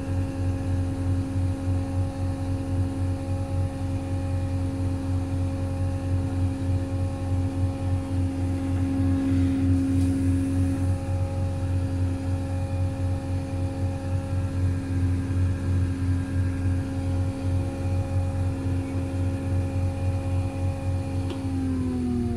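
Cat CW34 pneumatic-tyred roller heard from inside its cab, its diesel engine and drive running steadily with a low, pulsing hum and a steady whine. Right at the end the pitch starts to drop as the roller slows.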